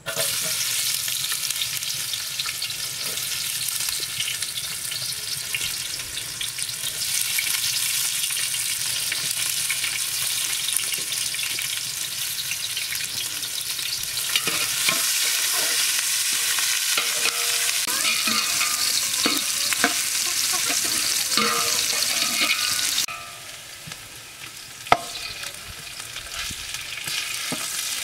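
Chopped onion and green chilies sizzling loudly as they hit the hot fat in a large aluminium pot, frying while a metal ladle stirs and clinks against the pot. The sizzle falls away suddenly about five seconds before the end, a single sharp knock follows, and then it builds again.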